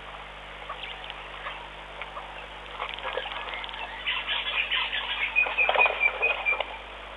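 Birds calling at a waterhole, with scattered chirps and clicks and a quick run of repeated high notes in the second half.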